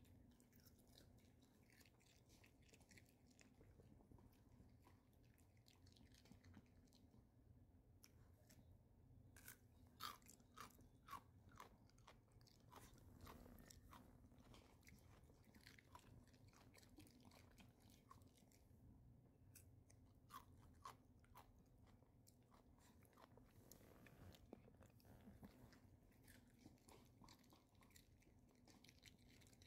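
Maltese dog crunching and chewing pieces of raw cucumber: a faint, irregular run of small crisp crunches, with a few louder bites scattered through.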